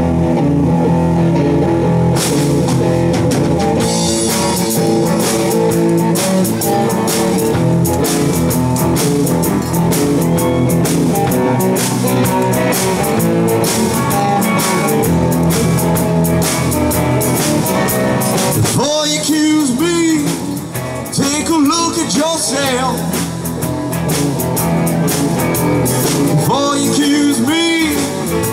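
Live band playing rock music on electric guitars, bass and drum kit. About two-thirds of the way in the beat and bass drop out, leaving bending melodic lines.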